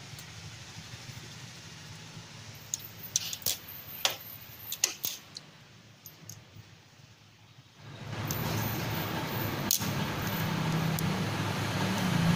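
Small metal clicks and ticks as a clutch washer is turned on the splined clutch shaft to seat it in its step. About 8 seconds in, a motor vehicle engine starts running close by and grows louder, drowning the handwork.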